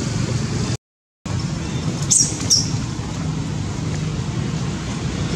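Steady low outdoor background rumble that drops out completely for about half a second about a second in, with two short high-pitched chirps about two seconds in.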